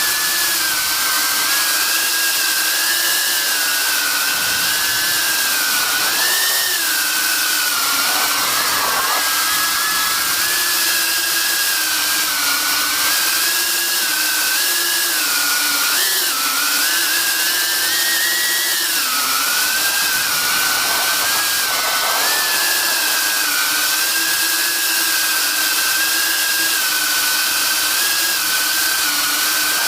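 Eachine Cvatar FPV quadcopter's motors and propellers whining in flight, heard from a camera mounted on the drone. The pitch wavers up and down with throttle changes, with a brief dip and jump about 16 seconds in and a rise around 19 seconds.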